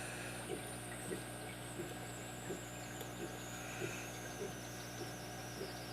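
Faint, light clicks about every half second as a lock pick works the pins of a brass padlock cylinder, over a steady electrical hum and a faint high whine that slowly falls in pitch.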